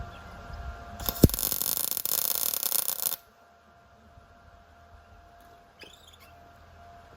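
ESAB Rebel MIG welder arc: a short weld of about two seconds, starting about a second in with a sharp crack, then a steady loud sizzling crackle that cuts off suddenly.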